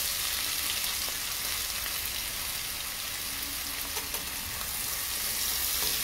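Chopped onions frying in hot oil in a pan, a steady sizzle with a few faint ticks.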